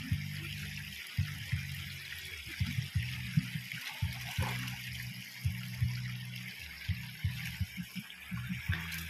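Shallow river water rushing and trickling steadily past wading legs and a staked fish net, with irregular low knocks and rumbling underneath.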